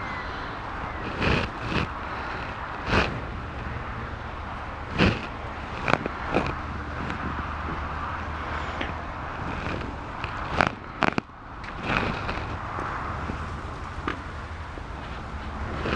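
Steady outdoor rustle and wind noise on the microphone, broken by about ten sharp clicks and snaps at uneven intervals.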